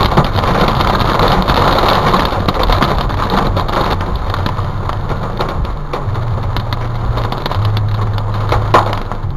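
Heavy rain and hail pelting a car's roof and windshield, heard from inside the car: a dense, steady patter of many small hits. A low hum joins about halfway through, and one sharp, loud hit lands near the end.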